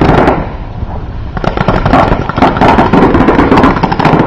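Paintball markers firing in rapid, overlapping volleys of sharp pops. The firing thins out for about a second shortly after the start, then resumes densely.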